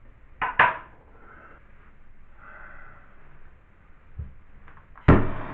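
Two short noises about half a second in, then near the end a handheld propane soldering torch lights with a sudden pop and settles into a steady hiss, ready to heat a copper fitting for tinning.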